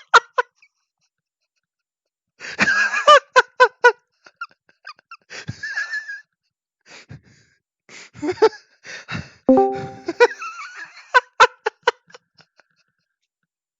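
A person laughing in several fits of quick, repeated bursts with breathy pauses between them.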